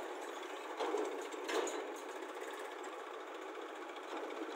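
Diesel engines of a Massey Ferguson 241 tractor and a JCB backhoe loader running steadily with an even clatter. Two brief louder bumps come about one and one and a half seconds in.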